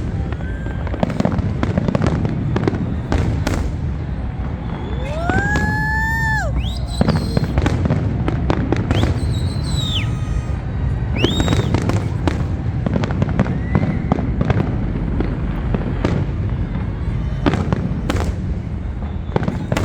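Aerial fireworks going off continuously: a dense rumble of booms and crackling bursts. Several whistles rise and glide over it in the middle, one lower and longer, the others high and short.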